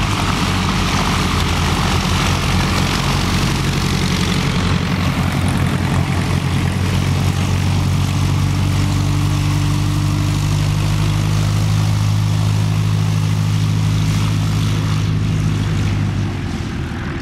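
Scottish Aviation Bulldog's four-cylinder Lycoming piston engine and propeller running steadily at low taxi power as the aircraft taxis past on grass, easing off near the end as it moves away.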